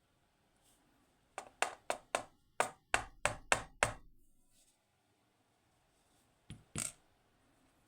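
Sharp metallic clicks and taps from a dimple lock's small parts being handled and knocked out as the lock is taken apart: a quick run of about eight, then two more near the end.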